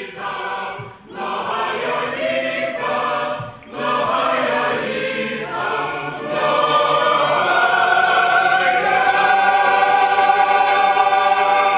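Ukrainian folk choir of men and women singing in several short phrases, then holding one long final chord from about six seconds in.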